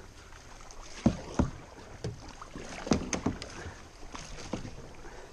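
Kayak paddling: a double-bladed paddle dipping and splashing in the river beside a plastic sit-on-top kayak, with a few sharp knocks and splashes, two about a second in and a quick cluster about three seconds in, over steady water noise.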